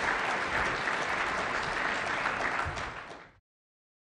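Audience applauding in a conference hall after a talk. The applause fades a little about three seconds in and then cuts off abruptly.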